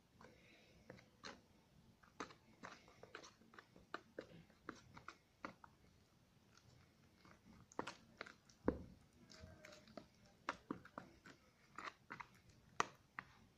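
A spoon stirring and working a thick flour-and-water slime in a small plastic tub: faint, irregular clicks and scrapes of the spoon against the tub and through the sticky mixture, a few a second.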